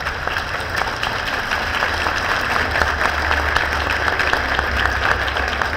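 Crowd applauding, a dense steady patter of many hands clapping, with a low rumble underneath.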